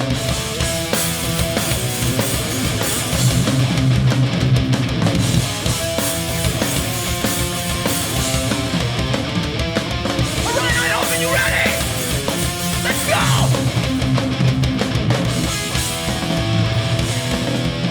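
Hardcore punk band playing live, an instrumental intro with heavy distorted electric guitar, bass and drums, loud and continuous.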